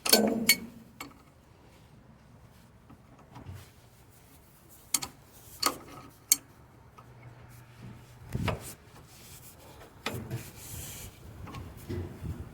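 Hands working an air line fitting into a truck's brake quick release valve: a few scattered light clicks and knocks, the loudest about eight and a half seconds in, with soft rubbing near the end.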